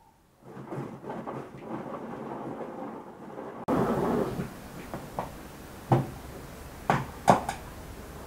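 A bunch of fresh herbs rustling as the leaves are stripped off by hand, with a louder rustle about four seconds in and a few sharp snaps near the end.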